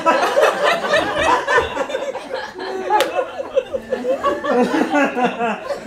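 Audience laughing, with voices mixed in.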